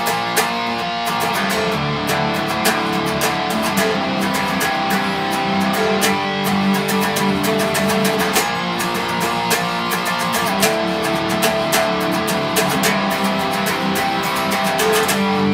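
Electric guitar tuned to drop C playing a metalcore chorus riff in time: fast, steady picking of power chords that move down to the open string and slide up the neck.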